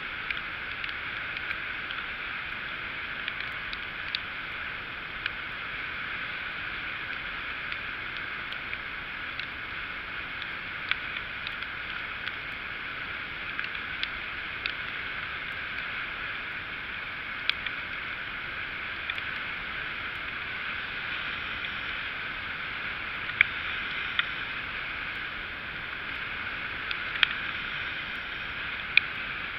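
Steady rushing noise of a Hercules MX1 moped being ridden on a wet road, engine, wind and tyre noise blended together and muffled, with scattered sharp ticks throughout.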